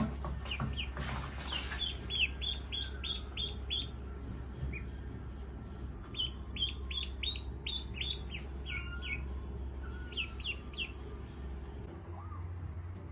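Ducklings peeping in quick runs of short high chirps, about three a second, with a pause of a couple of seconds in the middle. A brief rustling scuffle about a second in.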